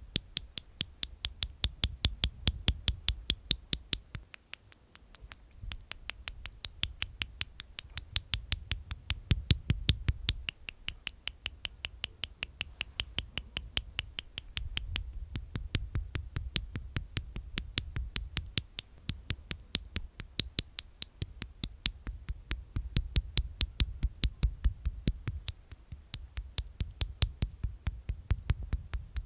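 Close-miked ASMR mouth sounds: a fast, even run of wet tongue and teeth clicks, several a second, with a low rumble underneath that swells and fades.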